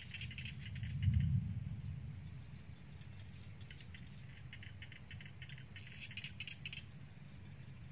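Field crickets chirping in fast pulsing trills, in two spells, over a low rumble that swells about a second in.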